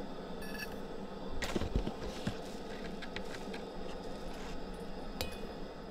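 Ground coffee being spooned into a stainless steel tumbler: a measuring spoon scraping and tapping against the metal cup, with small clicks and clinks and a short metallic ring in the first second.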